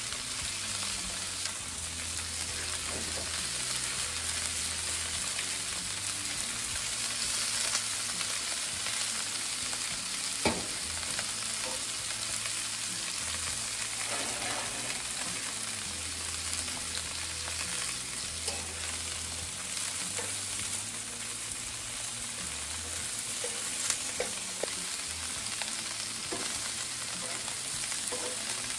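Pork medallions on a gas grill's griddle plate and bacon-topped asparagus in a pan sizzling steadily over the burners. A couple of sharp clicks stand out, at about ten seconds and near twenty-four seconds.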